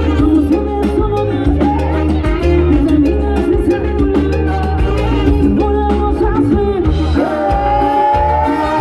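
Live Latin band music with a steady bass line and drums; near the end a group of held notes slides slowly upward.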